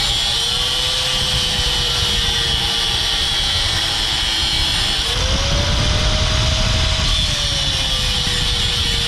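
A power tool running continuously as it cuts through the rusted, seized sway bar link hardware. Its steady whine jumps up in pitch about five seconds in and slowly sinks back as the load changes.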